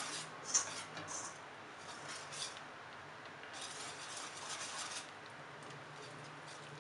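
Wire whisk beating eggs into flour in a stainless steel bowl, its wires scraping and clinking against the metal in uneven spells, with one sharp clink about half a second in and quieter whisking near the end.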